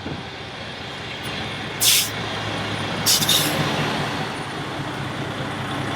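Heavy truck's diesel engine running steadily, with two short sharp air-brake hisses about two and three seconds in.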